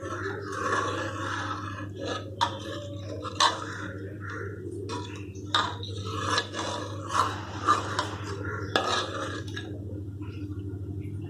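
A metal utensil scraping and clinking against a metal dish in irregular strokes, over a steady low hum.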